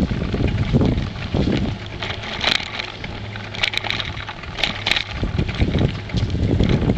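Wind buffeting the microphone of a camera on a moving bicycle, coming in uneven gusts, with scattered clicks and rattles from the bike.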